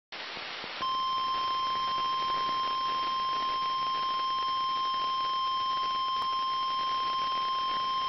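NOAA Weather Radio 1050 Hz warning alarm tone, a single steady, unwavering tone sounded as the routine test of the alarm, heard over a radio stream with a bed of static hiss. A brief stretch of plain hiss comes first, and the tone starts about a second in.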